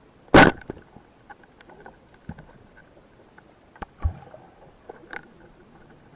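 A speargun fired underwater: one sharp, loud crack about half a second in, followed by scattered small clicks and a low thump about four seconds in.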